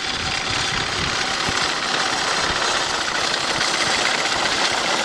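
McCormick No. 7 horse-drawn sickle mower running in gear with its cutter bar raised, its wheel-driven gearing working the pitman and knife back and forth in a rapid, steady clatter.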